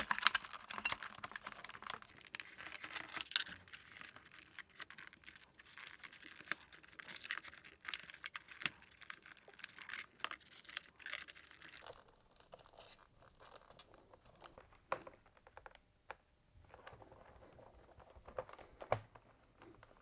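Quiet crinkling, rustling and small clicks of hands pressing adhesive tape, aluminium foil and wiring back into place on a plastic fridge evaporator fan cover. The handling is dense for the first twelve seconds or so, then thins to a few faint clicks.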